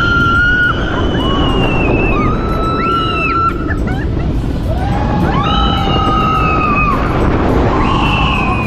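Several roller coaster riders screaming in long held cries, a few overlapping, over steady wind and rumble from the moving coaster train.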